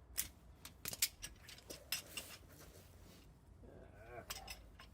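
The Discovery's original 20-year-old bottle jack being worked to lift the car, its metal parts clicking and knocking in a quick irregular series for about two and a half seconds. Near the end comes a brief wavering squeak.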